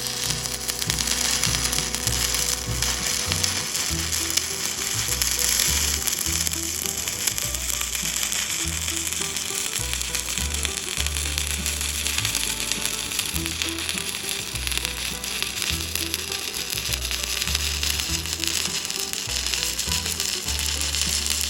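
Stick-welding arc crackling and sizzling steadily as an electrode burns along steel, under background music with a steady bass line.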